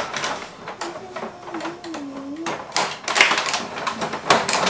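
Rod-operated table hockey game in play: rapid clicks and clacks of the control rods and plastic players, with the puck knocking against the boards, busier in the second half.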